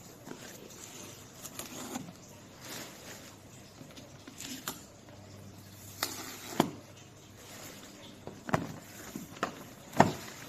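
Handling sounds: a few sharp clicks and knocks a second or two apart, with soft rustling between them, as a laptop and its packaging are handled.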